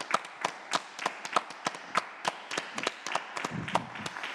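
Two people clapping their hands, a sharp clap about every quarter second throughout. A voice is faintly heard briefly near the end.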